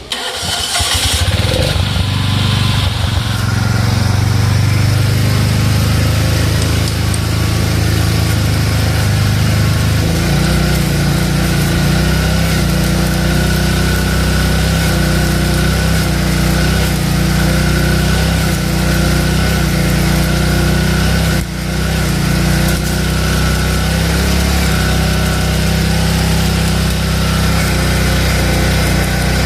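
Denyo 140GSII engine-driven welder-generator starting up and running steadily. About ten seconds in its engine note changes and settles into a steady run, with a brief dip a little past twenty seconds.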